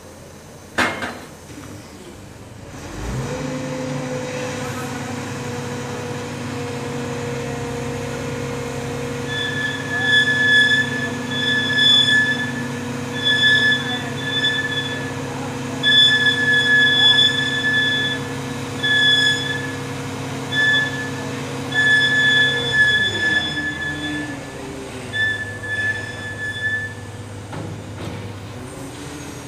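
A mobile crane's engine speeds up about three seconds in, runs steadily under load, and drops back to idle near the end, while a loud high-pitched squeal from the crane's lifting gear comes and goes in short stretches of half a second to a second and a half. A single knock sounds about a second in.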